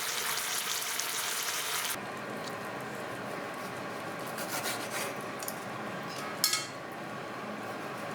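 Pork and onions sizzling in a frying pan. About two seconds in the sizzle cuts off abruptly. A utensil then scrapes and clinks against the pan, with one sharper clink about six and a half seconds in.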